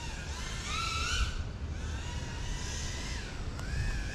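FPV quadcopter's motors whining, the pitch rising and falling as the throttle changes, over a low rumble of wind on the microphone.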